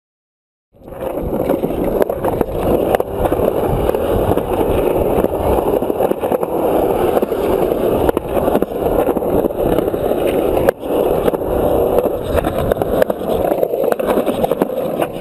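Skateboard wheels rolling on the concrete of a skatepark bowl: a steady rumble that starts about a second in, with a few sharp clacks along the way.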